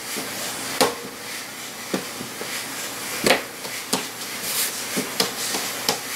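Hands working balls of pizza dough on a countertop: a handful of irregular soft knocks and taps against the counter over a steady hiss.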